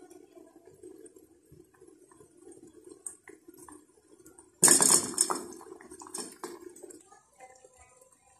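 A metal spoon clinks faintly in a saucepan of simmering palm-sugar syrup. About halfway through comes a sudden louder burst of clattering and bubbling that fades over a couple of seconds.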